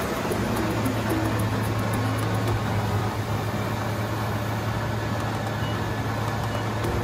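SWI TRAK DPMSX5 CNC milling machine running under power, a steady motor hum with an even mechanical noise over it.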